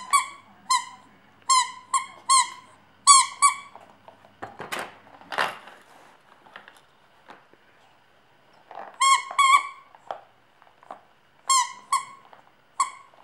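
Spiky rubber squeaky ball being squeezed, giving short high squeaks, mostly in quick pairs, in two clusters with a quieter gap of a few seconds in the middle. A brief rustle falls in the gap.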